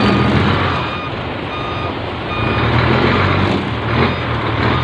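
A heavy truck's diesel engine running under load as it backs up a ferry's steel loading ramp, easing off about a second in and building again two seconds later. Its reversing alarm beeps at a steady pace of about one beep a second.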